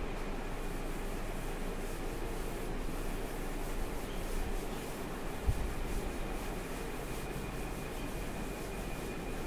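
Chalkboard being wiped with a duster: a steady rubbing, with a single knock about five and a half seconds in.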